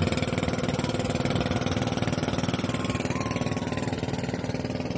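Boat engine running at a steady speed, with an even, rapid pulse.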